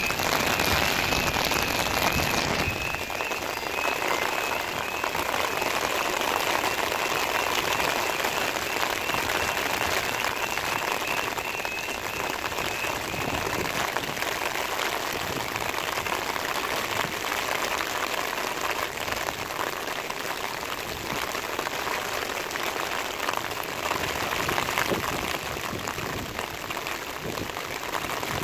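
Heavy rain hissing steadily on the road and cars. Over the rain, the level crossing's pulsing high-pitched warning alarm sounds while the barriers lower, then stops about halfway through.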